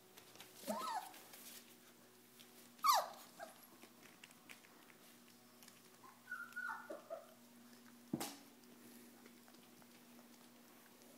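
Four-week-old Pyrenean Mastiff puppies giving a few short cries while they play: a brief one about a second in, a louder falling squeal near three seconds, and a small cluster of little calls around six to seven seconds. A single sharp knock comes near eight seconds.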